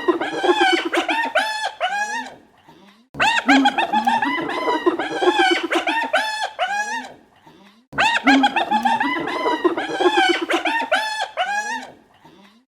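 Spotted hyena "laughing": rapid series of short, high-pitched giggling calls that rise and fall in pitch. The calls come in near-identical bouts a few seconds long, separated by brief pauses, one bout ending about two seconds in and two more following.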